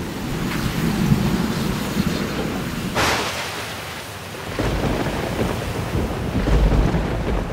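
Thunderstorm: a steady hiss of rain, a sharp thunderclap about three seconds in, then low rolling thunder.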